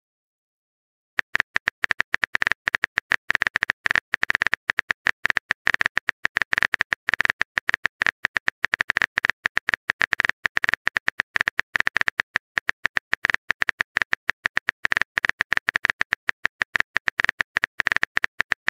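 Rapid, irregular clicking of a phone-keyboard typing sound effect, starting about a second in and running on without a break.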